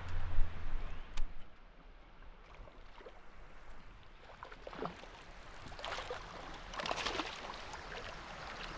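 Water splashing and sloshing around a kayak, with the loudest splashes a little past the middle. A low rumble on the microphone opens it.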